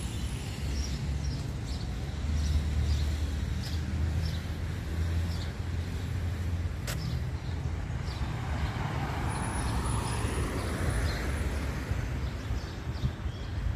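Street traffic: a car passing, its tyre noise swelling and fading over the second half, over a steady low rumble. Regular footsteps of someone walking tick along beneath, with one sharp click about halfway.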